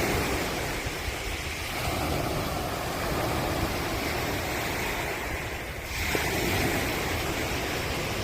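Ocean surf: waves breaking and washing in a continuous rushing noise that swells and eases, with a new wave surging in about six seconds in.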